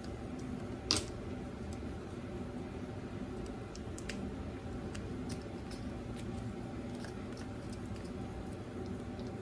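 Small opened snack-seasoning pouch being squeezed and handled, with faint scattered crinkles and one sharp click about a second in, over a steady background hum.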